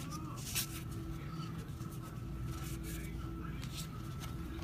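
Trading cards being slid off a stack and flipped through by hand: several short, soft swishes of card against card over a steady faint hum.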